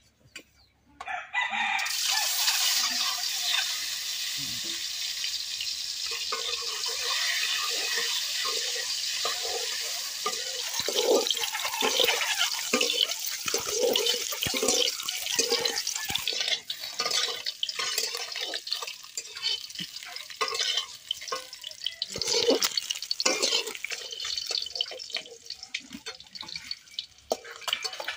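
Peeled hard-boiled eggs going into hot oil in an iron wok: a sudden loud sizzle starts about a second in and holds steady, then breaks up into crackling and popping as a flat metal spatula turns the eggs, thinning out near the end.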